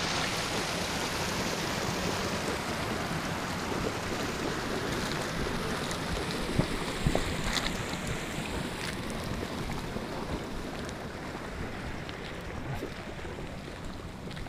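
Boiling geyser vents hissing and bubbling with a steady rushing noise that slowly grows fainter, with a few faint clicks in the middle.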